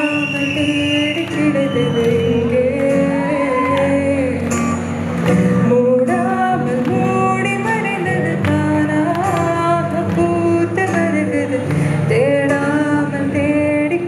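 A woman singing a solo melody into a microphone, accompanied by a strummed acoustic guitar.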